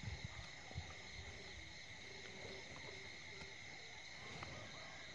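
Insects chirring steadily in one unbroken high trill, with a few soft low bumps in the first second.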